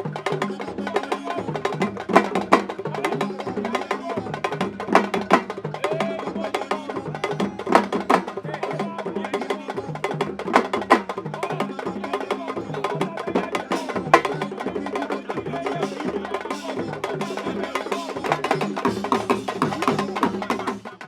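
Sabar drumming for traditional wrestling: dense, fast, sharp drum strokes over music with voices. It cuts off abruptly at the very end.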